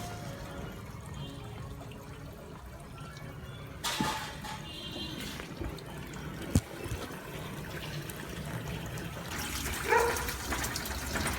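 Water running and splashing, with two short louder surges and a single sharp knock partway through.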